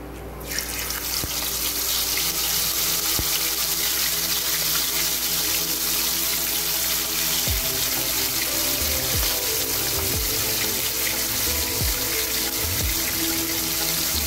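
Hot oil sizzling as marinated quail pieces are dropped into a frying pan; a loud, steady sizzle starts about half a second in and keeps going as the pieces fry.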